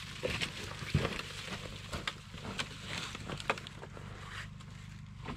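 Snow shovelling: a shovel scraping and crunching into packed snow in irregular strokes, over a steady low hum.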